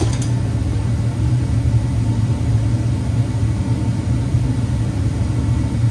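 Dodge Durango engine idling steadily after a thermostat replacement and coolant refill, with a short click right at the start.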